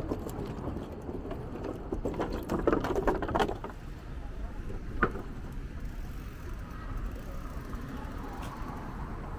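Street noise heard from a moving bicycle: a steady low rumble of road and traffic, with a burst of rattling clicks about two to three seconds in and a single sharp click about five seconds in.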